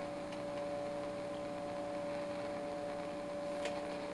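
Tube CB radio receiver on a quiet channel, putting out a steady hum of a few tones over faint hiss, with a small click near the end.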